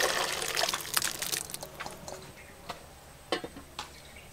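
Soaked sago pearls and their water pouring from a steel plate into a wok, a splashing rush that fades away over the first second or so. A few light metal clicks follow near the end, as a lid is set on the wok.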